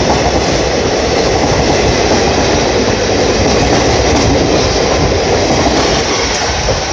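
Coaches of an Indian Railways express train passing a platform at speed: a loud, steady rush and rumble of wheels on the rails. The noise starts to fall away right at the end as the last coach clears.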